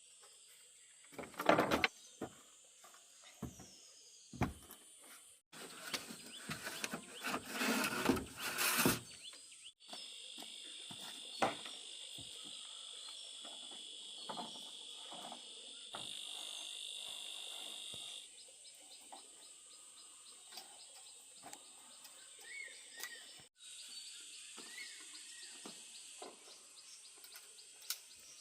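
Steady high-pitched insect chirring, with scattered knocks and a louder stretch of handling noise in the first third.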